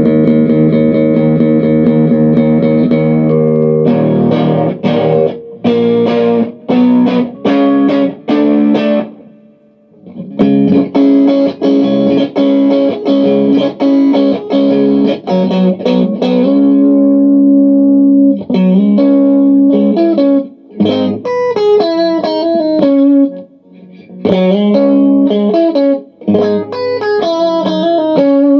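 Electric guitar, a Stratocaster with three single-coil pickups played on the neck pickup, through a guitar amp's clean channel turned up very loud. It starts with a long ringing chord, then chopped strummed chords and more held chords, and ends with a single-note melody over the last third.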